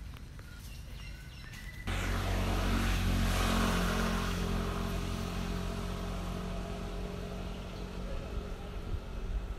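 A motor vehicle engine running with a steady low hum. It starts abruptly about two seconds in and slowly fades.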